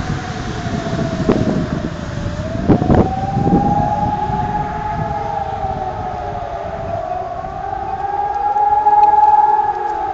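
Civil defence sirens wailing during a siren test, several of them out of step, their pitches slowly rising and falling; the loudest is the siren at the Merck works, with other sirens farther off. A few low thumps sound about one to four seconds in.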